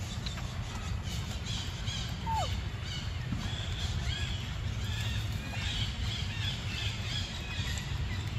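Birds chirping repeatedly in quick short calls, with one lower call that falls in pitch a little over two seconds in, over a steady low rumble.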